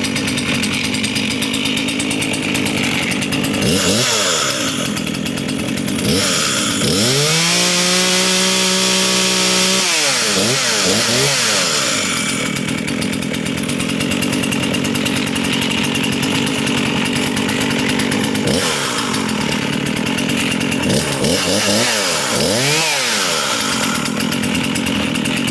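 Husqvarna 236 two-stroke chainsaw running at idle and revved several times: a short blip about four seconds in, a long held full-throttle rev from about seven to ten seconds, quick blips right after, and a cluster of blips near the end. It revs up and drops back cleanly with its carburettor adjusted, which the owner takes as the saw running perfectly and responding quickly.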